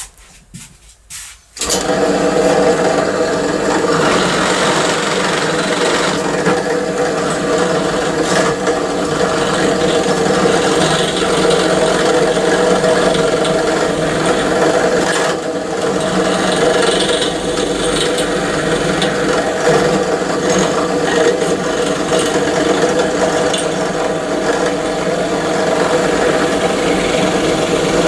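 A few light clicks, then, about one and a half seconds in, a small power tool starts and runs steadily, grinding material off a part of a window-handle gear mechanism to make it fit.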